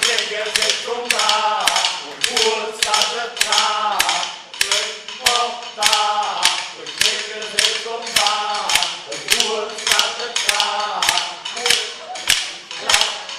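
A group of men singing together, keeping a steady beat with small wooden hand clappers: sharp wooden clacks about two to three a second under the voices.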